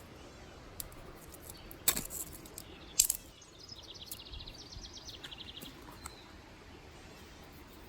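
Two sharp snaps of sticks being broken by hand, about two and three seconds in. Right after them a bird gives a fast trill of evenly repeated high notes lasting about two seconds.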